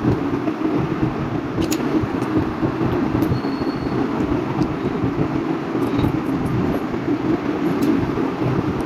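A steady low rumbling hum, with a few faint sharp clicks of small plastic building bricks being handled and pressed together.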